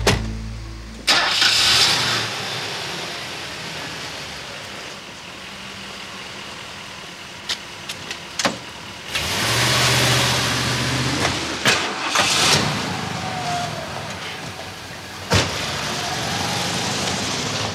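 A car engine starting and running, with several sharp knocks.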